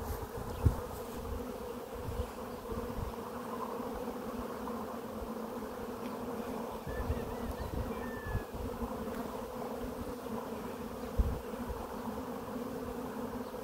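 Honey bees buzzing steadily, a continuous hum from a frame crowded with bees held close. Two brief knocks, about a second in and near the end, stand out above the hum.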